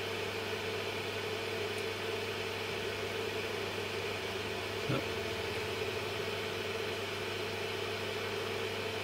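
Steady hum and whir of a small soldering fume-extractor fan running, with a single brief click about five seconds in.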